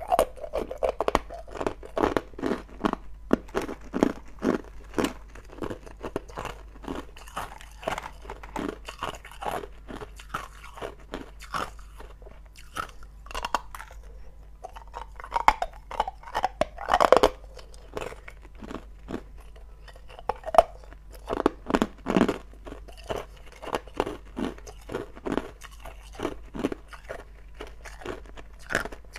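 A person biting and chewing hard ice cubes: a quick run of sharp crunches, with a short lull a little before the middle.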